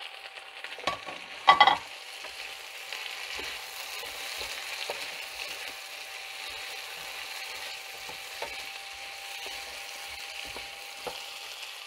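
Chopped vegetables sizzling in hot oil in a non-stick frying pan while a wooden spatula stirs them. The vegetables are carrot, mushroom, celery, peppers and onion. About a second and a half in there is a short loud clatter of the spatula against the pan.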